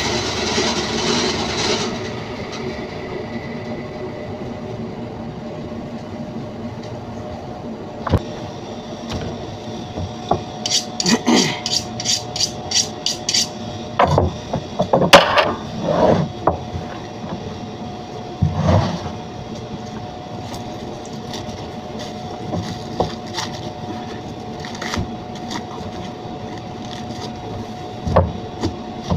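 Meat band saw running, which stops about two seconds in. Then a butcher's knife cutting and scraping through a lamb carcass on a plastic cutting board, with scattered clicks and knocks, over a steady room hum.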